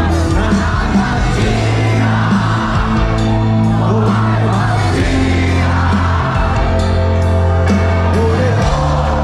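Live band music played over a PA with a singer, heard from within the audience, with shouts and whoops from the crowd.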